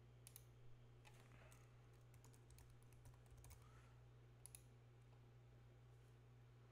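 Faint typing on a computer keyboard, a scattering of quick key clicks over the first few seconds, then a mouse click about four and a half seconds in, over a low steady hum.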